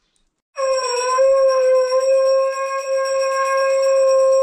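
A conch shell (shankh) blown for the puja: one long, steady note that starts about half a second in and holds without a break.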